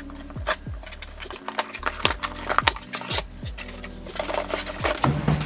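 Cardboard shipping box being opened and its flaps handled, with scattered rustles and knocks over background music with a steady beat.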